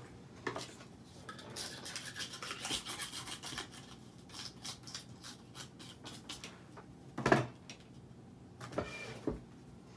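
A die brush scrubbing a thin metal cutting die to push out tiny paper scraps: quick, scratchy bristle strokes, busiest over the first few seconds. A single louder knock comes about seven seconds in.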